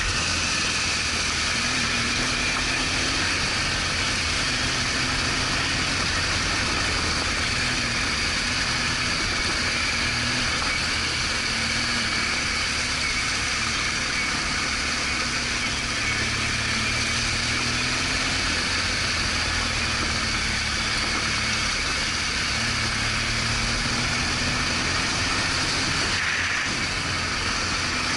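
BMW R1200GS Adventure boxer-twin engine running steadily under way, its pitch drifting slowly up and down with small throttle changes, under a steady rush of wind and road noise.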